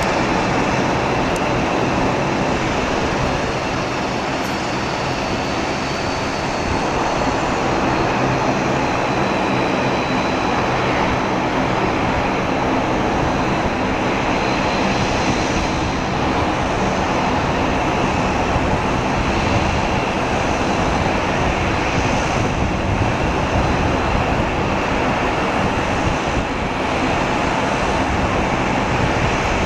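Jet engines of a Boeing 767-200F freighter on final approach: a steady, even rush of engine noise, with a faint high whine that drifts slightly lower in pitch in the first dozen seconds.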